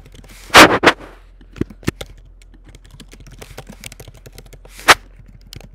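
Typing on a computer keyboard: scattered key clicks, with two much louder sharp clacks about half a second in and another near the end.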